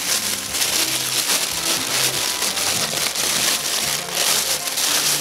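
Thin plastic bag crinkling and rustling as a wrapped fog light is handled and pulled out of a cardboard box, over background music with a plodding bass line.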